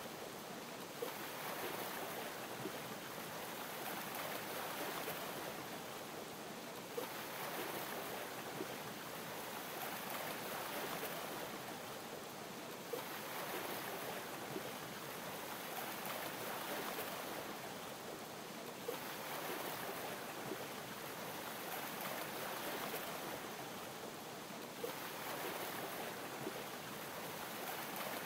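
Gentle ocean waves lapping, over a steady watery hiss, swelling about every six seconds with a small sharp pop at each swell.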